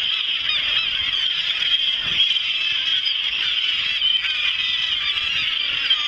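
A large flock of gulls calling all at once, a dense chorus of many overlapping squawks and cries that goes on without a break.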